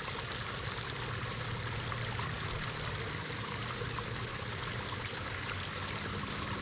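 Steady rushing of running water with a faint low hum underneath.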